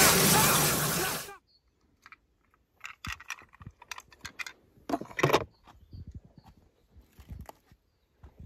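A loud rushing hiss cuts off suddenly about a second and a half in. After it, small die-cast toy cars give scattered light clicks and clacks as they are handled and set down.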